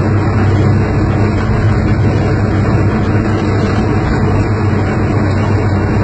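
Ruston narrow-gauge diesel locomotive running steadily under power, a loud, even low drone with no change in pitch or any separate knocks.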